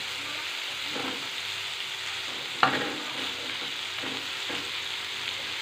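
Shredded cooked chicken sizzling in oil in a frying pan, stirred with a wooden spatula that scrapes the pan now and then. About halfway through there is a sharp knock against the pan.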